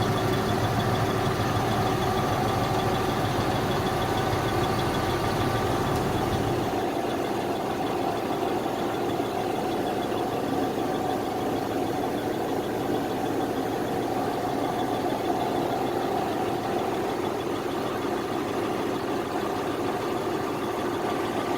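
Volvo B58 straight-six diesel bus engine idling steadily. About seven seconds in, its deep low rumble drops away while the rest of the engine sound carries on.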